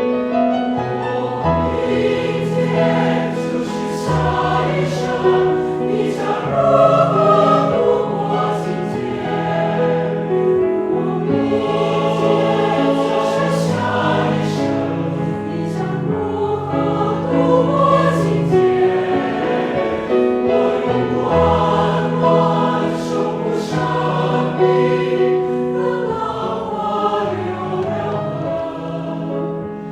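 A mixed choir singing with piano accompaniment: sustained chords in several parts.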